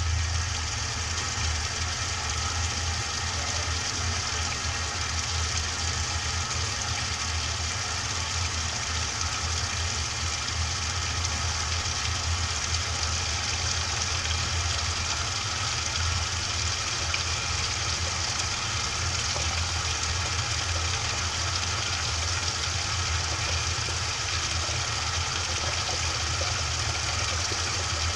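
Washing machine running, heard from inside the drum: a steady low hum under an even, muffled wash of noise.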